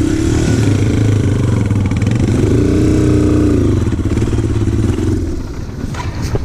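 Off-road motorcycle engine revving up and down as the bike moves off over rough ground. The engine note drops away about five seconds in, and a few sharp knocks follow near the end.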